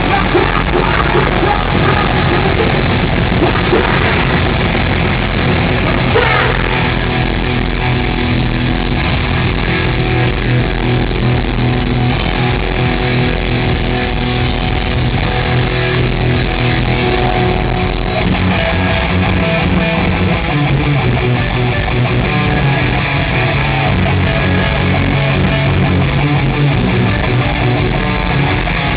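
Live heavy rock band playing loudly and continuously, with distorted electric guitars and drums.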